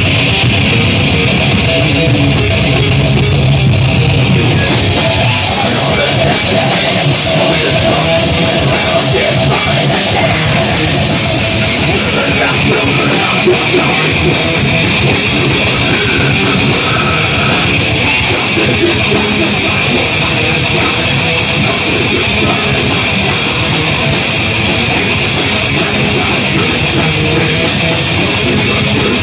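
Heavy metal band playing live, heard loud: distorted electric guitars and bass over a drum kit. The sound grows brighter at the top about five seconds in.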